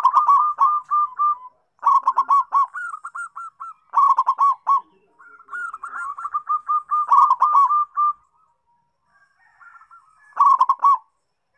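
Zebra dove (perkutut) singing: runs of quick, rolling cooing notes in repeated phrases with short gaps, a longer pause, then one short phrase near the end. It is a lure song (pancingan) for prompting other zebra doves to sing.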